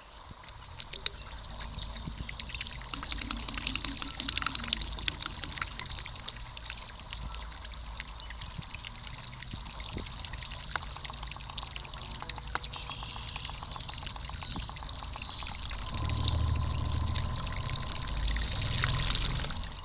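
Water splashing and gurgling along the hull of a canoe under way, with many small splashes. A low rumble underneath grows louder about three-quarters of the way in.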